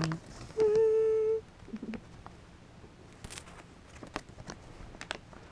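Paper dollar bills being counted by hand, with light snaps and rustles as the bills are flicked over. Near the start a person hums one steady note for under a second.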